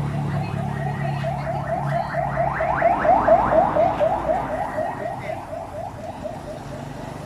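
Electronic alarm sounding a fast series of rising whoops, about five a second, growing louder and then fading away.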